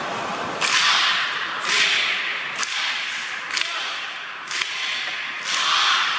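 Sharp whip-like cracks about once a second, each trailing off in a short burst of hiss, in a steady rhythm during a cheerleading routine.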